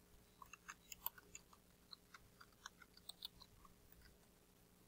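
Faint computer keyboard typing: a quick run of soft key clicks that thins out after about three and a half seconds.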